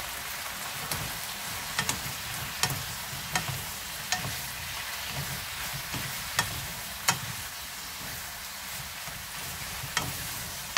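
Tofu, mushrooms and peppers in a soy-sauce glaze sizzling in a frying pan as they are stir-fried with wooden spatulas, with sharp taps of the spatulas against the pan about once a second.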